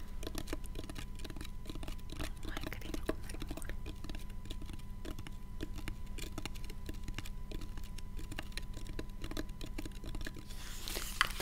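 Fingers tapping on a small hard black plastic object held close to the microphone: rapid, irregular light clicks, like typing, over a faint steady electrical hum.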